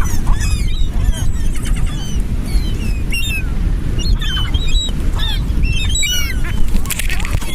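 A flock of seagulls calling close by, many short squawks and cries overlapping throughout, over a steady low rumble.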